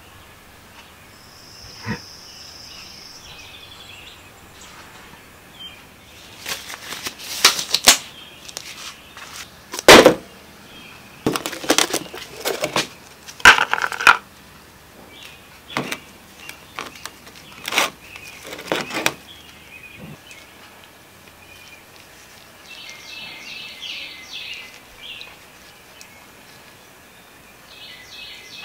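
Gloved hands handling the small metal parts of a disassembled adjustable scooter kickstand and working grease: an irregular series of clicks, knocks and rustles, loudest about ten seconds in and again about thirteen seconds in, over a low steady background hiss.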